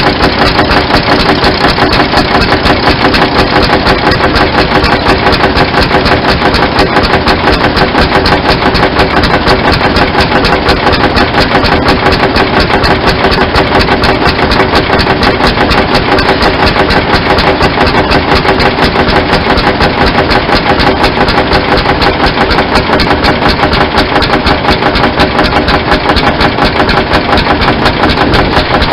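Vintage Nuffield tractor's engine running loud and steady, with a rapid, even firing beat.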